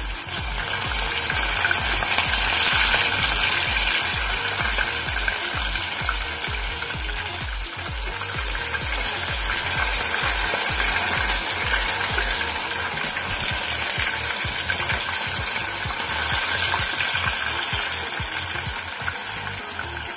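Marinated chicken pieces deep-frying in hot oil in a saucepan, a steady loud sizzle of bubbling oil, as the pieces are turned over with a wooden spatula.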